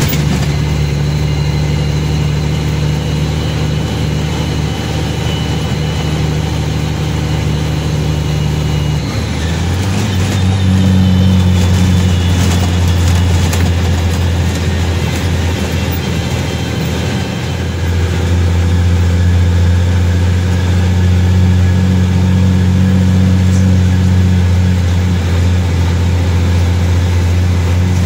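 Mack CH truck's diesel engine heard from inside the cab, running steadily under load. About nine seconds in its note suddenly drops lower and grows louder, and it dips briefly near seventeen seconds before settling again.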